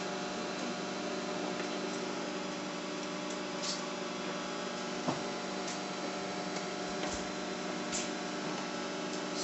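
Microwave oven running with a steady electrical hum, with a few faint clicks.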